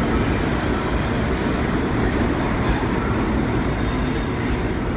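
New York City subway train pulling out of an underground station and running away down the track, a steady low rumble.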